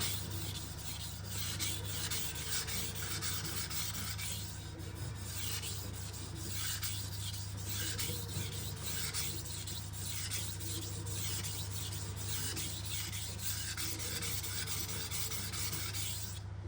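Steel knife edge stroked back and forth on a 1000-grit vitrified diamond whetstone, a rhythmic scraping at a little over one stroke a second that stops shortly before the end.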